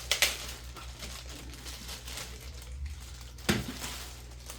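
Unboxing handling noise: packaging and accessories being moved about, with two sharp clicks or knocks, one just after the start and one near the end.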